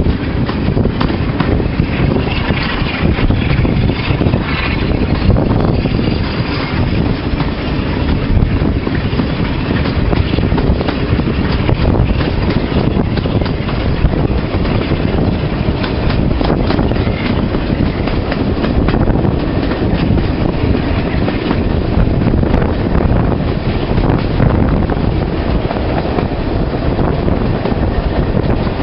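Diesel locomotive under power hauling a passenger train, heard from an open coach window as a steady low rumble, with wind buffeting the microphone.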